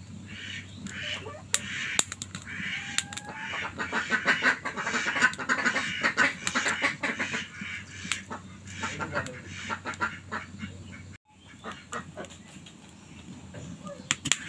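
Ducks quacking in a long, busy run of calls, loudest in the middle and fainter after a brief dropout about eleven seconds in, with many small sharp clicks mixed in.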